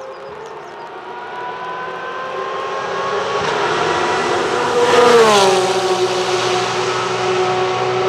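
Race car on a wet track accelerating toward the listener, its engine note rising, then passing close about five seconds in with a sharp drop in pitch and a hiss of spray. It carries on away at a steady lower note.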